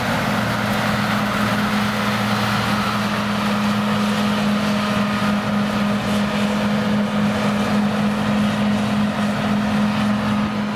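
An engine running steadily at a constant pitch, with an even rushing noise over it.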